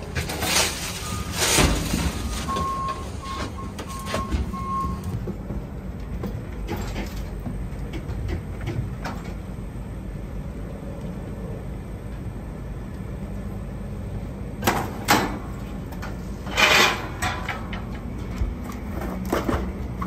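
Knocks and clatter of old HVAC equipment and a hand truck being moved out of a trailer and across concrete, over a steady low engine rumble. A faint run of short beeps, like a reversing alarm, sounds about three seconds in.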